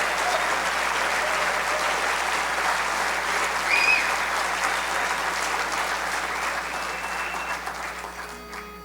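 Audience applauding after a barbershop quartet's song, with a brief high-pitched call about four seconds in. The clapping dies away near the end as a steady pitch-pipe note sounds, giving the quartet its starting pitch.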